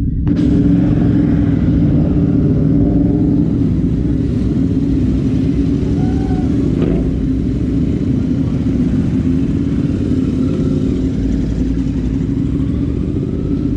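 Several Royal Enfield 650cc parallel-twin race motorcycles running steadily at low revs as they roll past at walking pace.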